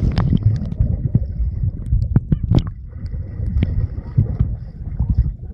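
Pool water heard through a submerged camera: a muffled low rumble of moving water with scattered sharp clicks and pops, as a small child swims underwater.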